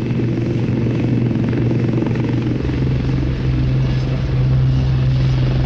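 Westland 30 helicopter running on the ground, its main rotor and turbine engines making a loud, steady low tone that grows slightly stronger in the second half.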